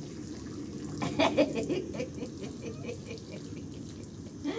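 Swimming-pool water splashing and sloshing, with a quick, rhythmic run of short sounds, about six a second, starting about a second in and lasting under two seconds.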